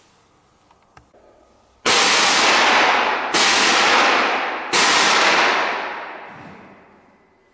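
TP-T25 single-tube CO2 jet machine firing three quick blasts of liquid CO2 through its high-pressure valve, each a loud hiss that starts abruptly; the third fades away over about two seconds.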